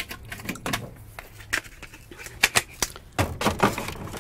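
A string of small clicks and knocks from hard items being handled and stowed in a school bus's overhead compartment, with a cluster of heavier knocks from about three seconds in.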